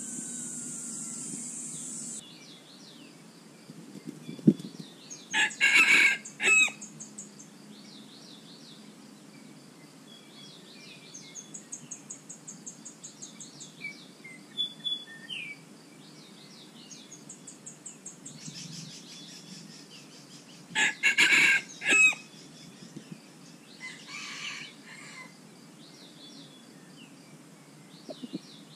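A cock of the junglefowl kind crows twice, about fifteen seconds apart, each crow a short run of loud, clipped notes. A sharp tap comes just before the first crow, and insects chirp steadily throughout.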